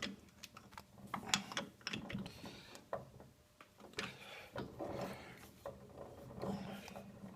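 Metal lathe chuck being turned by hand and adjusted while a part is dialed in to run true, giving irregular mechanical clicks and knocks.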